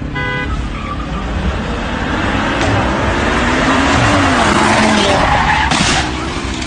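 Car tyres screeching and the engine revving as a car slides sideways, the screech building to its loudest around the middle. A car horn toots briefly right at the start.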